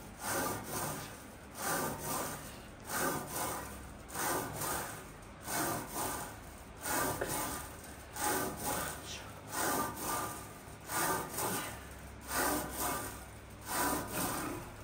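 Heavy, rhythmic breathing of a woman straining through barbell hip-thrust repetitions on a Smith machine, one forceful breath about every second and a quarter, about ten in all.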